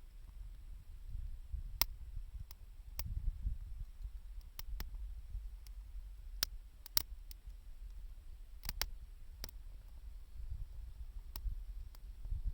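Wood fire crackling: about a dozen sharp pops and snaps at irregular intervals over a low rumble.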